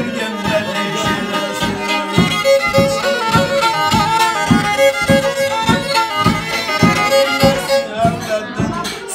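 Black Sea kemençe, a small upright bowed fiddle, playing a fast folk tune. From about two seconds in, a steady beat of thumps, about three a second, runs along with it.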